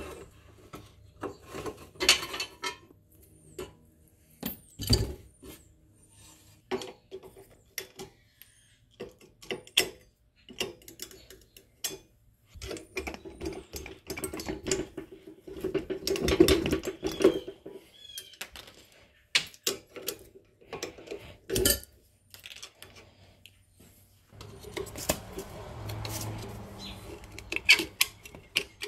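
Hand tools clinking, clicking and knocking on the steel parts of a John Deere 520 pedal tractor being taken apart, with pliers and a screwdriver working at a wheel hub and hub cap. The clicks are scattered, with a few louder knocks and two longer stretches of scraping noise, about halfway and near the end.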